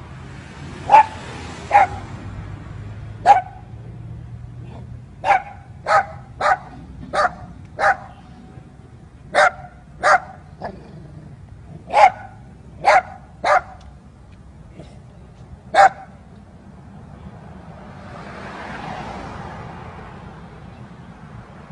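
A dog barking: about fourteen short, sharp single barks, irregularly spaced. After them comes a gradual swell and fade of rushing noise with no barks.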